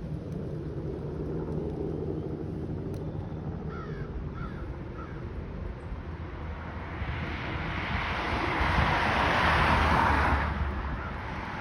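Crows cawing three short times, about four to five seconds in, over a low steady hum. A louder rushing noise then swells over several seconds and drops away sharply just past ten seconds.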